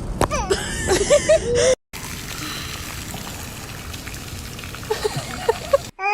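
Water splashing and trickling as steady noise for about four seconds, after short high-pitched voices at the start.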